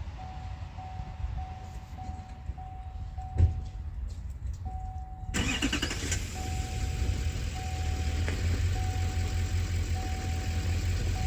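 A vehicle's electronic warning chime beeps steadily, about two beeps a second, with a single thump a few seconds in. Just past halfway an engine starts and settles into a steady idle while the chime keeps beeping.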